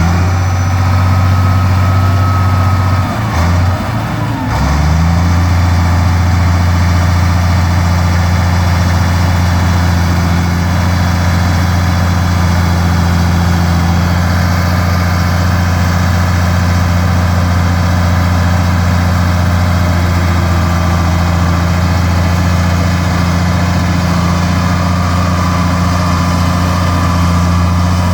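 Heavy diesel engine of earthmoving machinery running steadily at high, even revs. About three to five seconds in, its speed drops briefly and then picks back up.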